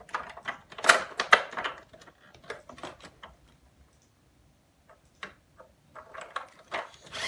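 Hard plastic toy parts clicking and knocking together as they are handled and fitted into the toy truck. The clicks come irregularly and are loudest about a second in, with a lull midway.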